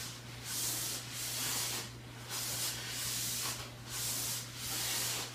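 Exercise sliders under the feet swishing out and back across carpet in a steady rhythm, a little more than one stroke a second. A steady low hum runs underneath.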